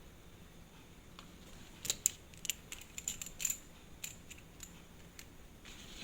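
Small metal watchmaker's tools clicking and tapping against a tiny wristwatch movement: an irregular run of light metallic ticks through the middle of the clip.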